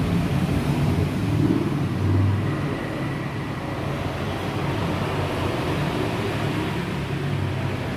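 Motor vehicle running, a steady low drone with traffic noise.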